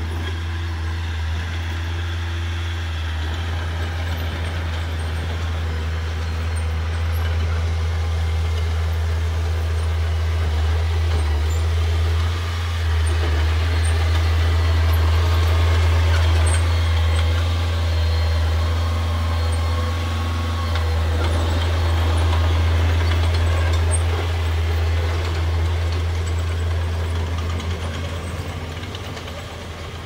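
Small crawler bulldozer's diesel engine running under load as it pushes dirt, a steady low drone. It grows louder about halfway through and drops away near the end.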